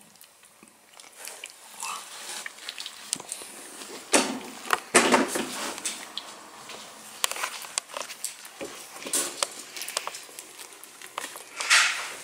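Newborn Tibetan terrier puppies grunting and snuffling as they squirm together, with scattered small clicks and rustles. The loudest stretch comes about four to five seconds in, and there is another burst near the end.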